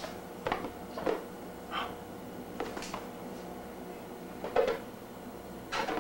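A few scattered light knocks and bumps, the loudest about two-thirds of the way through, over a faint steady hum.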